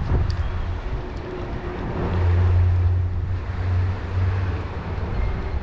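Low, steady engine rumble that swells about two seconds in, over wind noise on the microphone.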